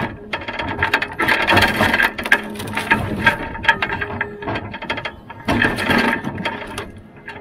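Rottne F13-C forwarder's loader crane working: rapid rattling, clicking and knocking from the boom tip, grapple and rotator in three spells, over the steady hum of the machine's hydraulics and engine.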